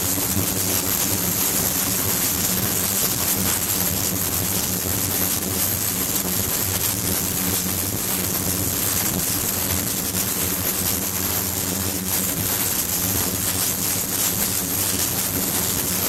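Water rushing and splashing as it streams into a tank and through a perforated stainless-steel basket, over the steady low hum of a running circulation pump. A thin high steady tone sits on top.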